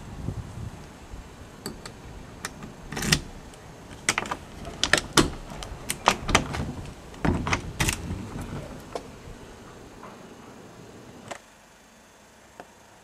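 Metal door lock and pull handle being worked to open a door: a string of sharp clicks and rattles from the latch, cylinder and handle.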